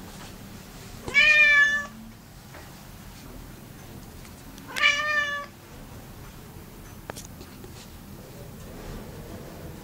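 Domestic cat meowing twice, each meow under a second long, the first about a second in and the second about five seconds in.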